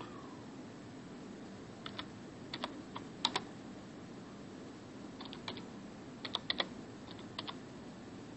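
Keystrokes on a computer keyboard: two short runs of typing, one about two seconds in and another about five seconds in, over a steady low hum.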